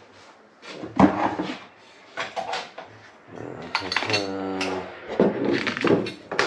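Kitchen handling sounds while instant coffee is made: a metal spoon and a glass coffee jar clinking and knocking against a ceramic mug, with the sharpest knock about a second in and a brief droning tone a little past the middle.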